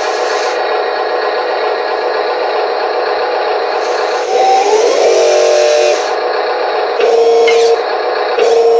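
Motors and gearing of an Amewi 22500 1/14 scale RC wheel loader whirring and grinding as the bucket arm lifts and the bucket curls. The pitch shifts each time the stick input changes, about four seconds in and again near seven seconds.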